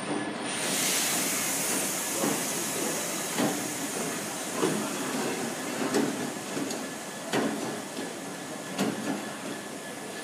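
Freight wagons rolling past, a steady rumble and hiss of steel wheels on rail, with sharp clacks a little over a second apart as wheelsets cross rail joints.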